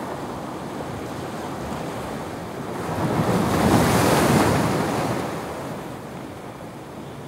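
Ocean swell washing and breaking against the rocks below the ledge, with wind buffeting the microphone. A wave surges in about three seconds in, gets loudest a second later, then drains away.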